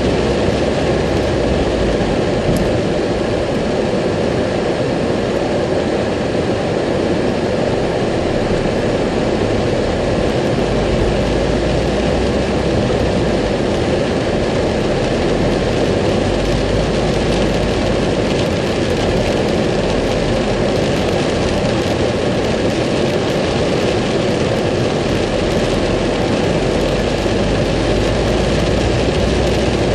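Steady noise inside a car driving through heavy rain: rain on the roof and windscreen mixed with tyres on the wet road and the car's running.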